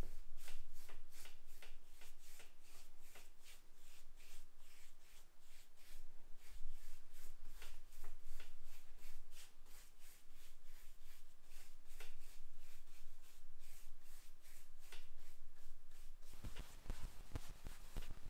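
Paintbrush strokes applying primer to a wooden door frame: a steady run of short, scratchy swishes, about two to three a second. About two seconds before the end this gives way to lower, duller handling sounds.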